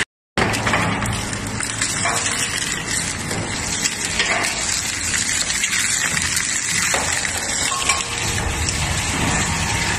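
A crushing or shredding machine runs steadily with a rushing, grinding noise, broken by scattered short cracks as material breaks apart.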